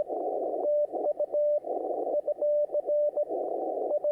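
Morse code (CW) received on a ham radio: a single tone keyed into dits and dahs, alternating with patches of hissing band noise, from a station working a pileup on the 20-metre band.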